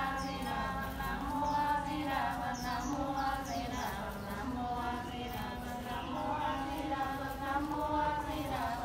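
A voice chanting in long held, wavering notes, with a few short bird chirps over it in the first half.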